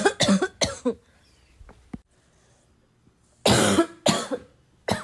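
A person with a bad cough coughing in two fits of about three harsh coughs each, the first right at the start and the second about three and a half seconds in.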